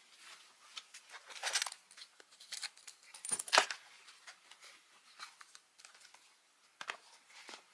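Small handling noises: scattered light clicks, taps and rustles, with one sharper click about three and a half seconds in.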